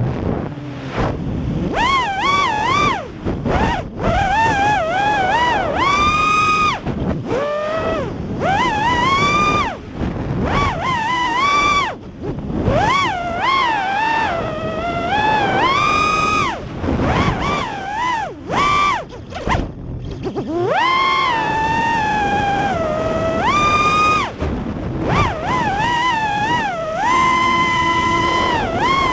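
Brushless motors of an FPV racing quadcopter, Racerstar 2306S 2400kv, whining in flight. The pitch rises and falls quickly with the throttle and drops out briefly several times.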